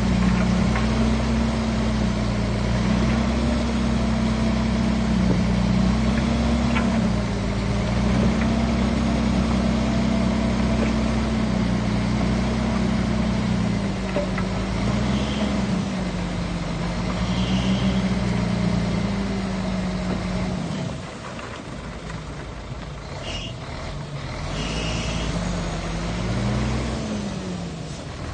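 Bulldozer's heavy diesel engine working under changing load, its pitch rising and falling. About three-quarters through it drops quieter, then revs up and down again near the end.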